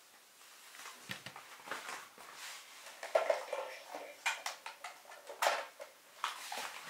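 Handling noise: a run of knocks, taps and rustles as a small boxy charger is set down on a table and other gear is picked up.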